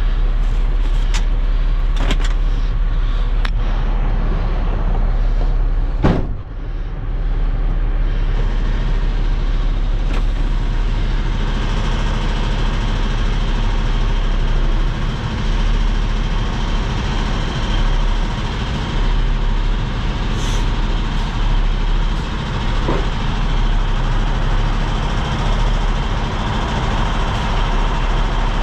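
Diesel engine of a medium-duty bucket truck running steadily as it drives slowly, heard from inside the cab. A few light clicks come in the first four seconds, and a single sharp knock comes about six seconds in.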